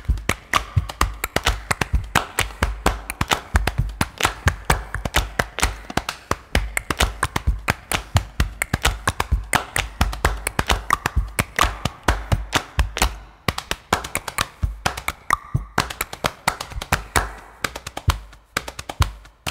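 Background music: a fast percussive track of rapid tapping hits over a low bass pulse.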